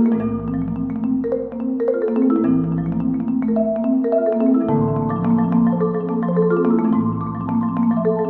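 Background music: quick struck mallet-like notes over a low bass line that changes about every two seconds.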